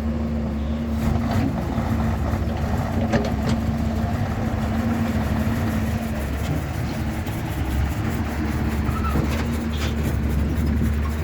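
Excavator's diesel engine running steadily, with a few short knocks from the working machine.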